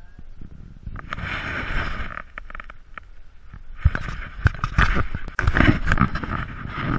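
Handling noise from a body-worn camera: rustling with many sharp knocks as the wearer walks and climbs stone steps, loudest from about four seconds in.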